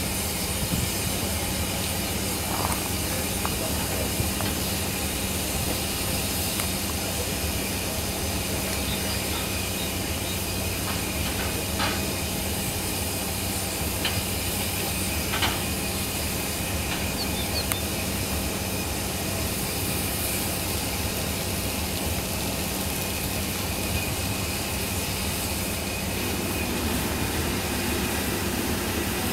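Steam tank locomotive (GNR N2 0-6-2T No. 1744) standing with steam hissing steadily, with a few light clanks.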